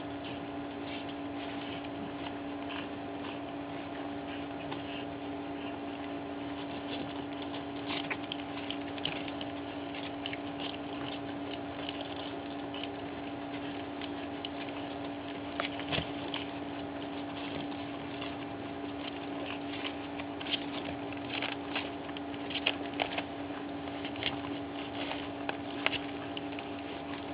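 Pug puppies eating soft weaning food from a plastic bowl: many small, irregular lapping and clicking sounds, with a few sharper clicks in the second half, over a steady low hum.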